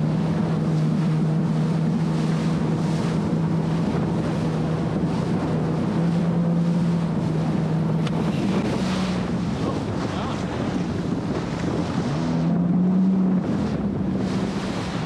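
Jet ski engine running at speed with a steady hum that rises briefly in pitch about twelve seconds in, under strong wind buffeting the microphone and rushing water from the wake.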